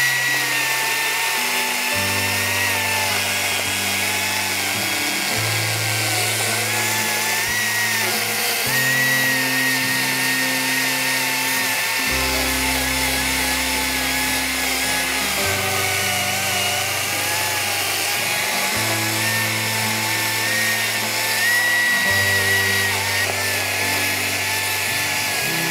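Battery-powered Makita chainsaw cutting down into the end grain of a thick log, its electric motor whine dipping and rising as the chain bogs under load. Background music with changing chords plays throughout.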